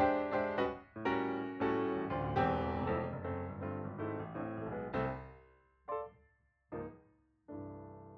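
Background music played on piano or electric keyboard: a run of notes that thins out about halfway, then a few single chords and a last held chord fading out near the end.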